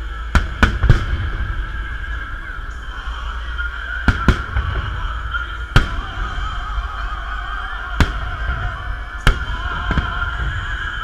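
Aerial fireworks salute shells bursting, about eight sharp bangs at irregular intervals, three in quick succession right at the start, over steady background music.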